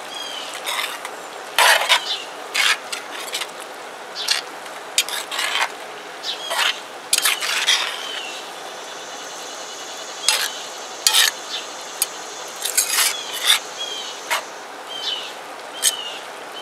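Metal spoon stirring thick crawfish and corn jambalaya in a cast-iron pot, with irregular scrapes and knocks of the spoon against the pot.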